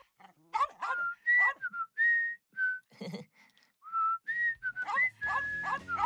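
A boy whistling a jaunty tune in clear held notes, broken by a small dog's short, sharp barks near the start and again near the end. Background music comes in near the end.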